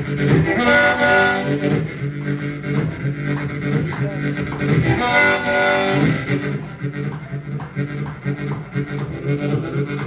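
Live blues band playing an instrumental passage: harmonica wails two long high phrases, about half a second in and again around four and a half seconds, over a steady guitar and bass backing.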